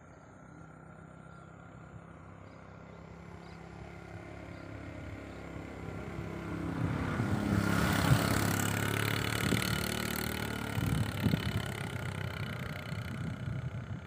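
A motor vehicle's engine growing steadily louder as it approaches, loudest about eight seconds in as it passes, then slowly fading away.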